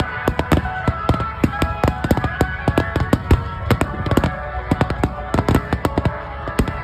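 Fireworks bursting in a rapid, dense barrage of bangs, several each second, with music playing underneath.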